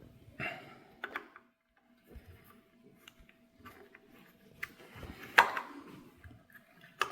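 Scattered light clicks and taps of small hand tools and parts being handled on a guitar body, with a sharper knock about five seconds in.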